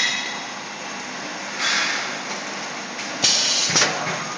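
Pneumatic cup-dropping station of an automatic cup filling and sealing machine cycling, dropping plastic cups into the mold plate. There are two short bursts of compressed-air hiss about a second and a half apart, the second ending in a sharp clack, over steady machine noise.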